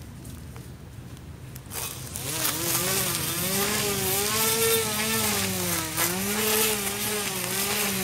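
Homemade push mower's 775 DC motor spinning its blade into tall grass: from about two seconds in it gets louder, a whine that repeatedly rises and dips in pitch over a hiss of grass being cut.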